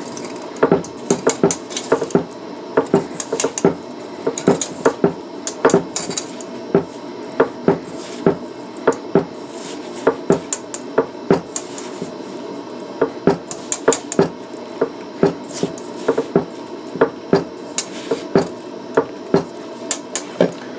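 Stainless steel mixing bowl clanking and clinking against a wooden tabletop as dough is mixed by hand, in irregular knocks about once or twice a second.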